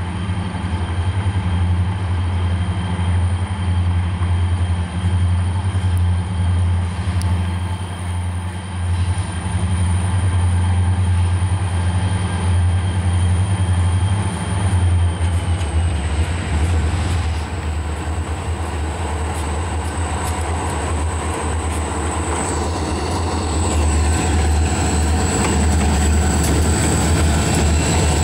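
Maryland Midland freight train's EMD diesel locomotives rumbling steadily under way. A thin high whine drops slightly in pitch about halfway through, and the sound grows a little louder near the end.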